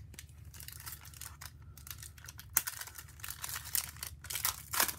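The foil wrapper of a 2016 Panini Certified football card pack being torn open and crinkled by hand: a run of sharp crackles and tearing that grows busier from about a second in.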